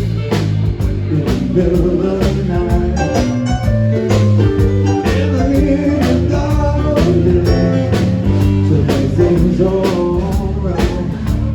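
Blues-rock band music with guitar, a drum kit keeping a steady beat, and a singing voice.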